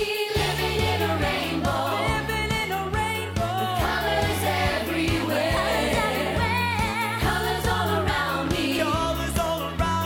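Upbeat children's pop song: several voices singing together over a bouncing bass line and a steady beat.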